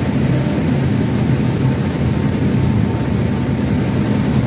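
Steady drone of a passenger boat's engine under way, mixed with the rush of its churning propeller wake.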